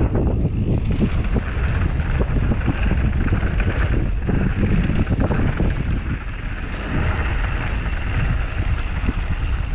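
Mountain bike descending a dirt and gravel trail at speed: tyres rumbling over the ground, with the bike knocking and rattling over bumps. Wind buffets the microphone throughout.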